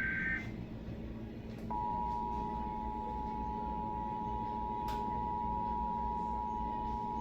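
Emergency Alert System broadcast audio from a television speaker: the screechy SAME digital data burst cuts off just after the start, and after a short pause the steady two-tone EAS attention signal (853 and 960 Hz together) starts about 1.7 seconds in and holds without change. This is the alert tone of a Required Monthly Test.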